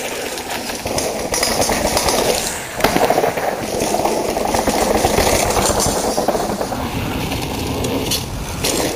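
Mountain bike tyres rolling fast over a dry dirt trail as riders pass close by, a rough crunching rush that changes suddenly a few times.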